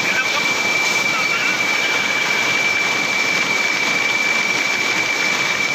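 Studio audience applauding, a dense steady clatter of many hands with no break. A thin steady high-pitched tone runs underneath.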